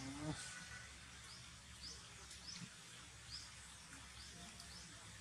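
Faint outdoor forest ambience with short, high rising chirps repeating every half second to a second.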